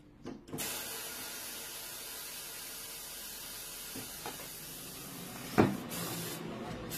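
Air hissing out steadily, interrupted by a single sharp knock about five and a half seconds in; a second hiss starts just before the end.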